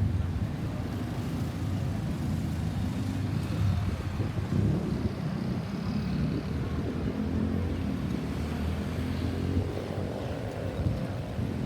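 Road traffic: the engine and tyre noise of passing vehicles, a steady low rumble.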